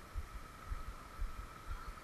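River water rushing over rocks, with wind buffeting the microphone in irregular low thumps and a faint steady high tone.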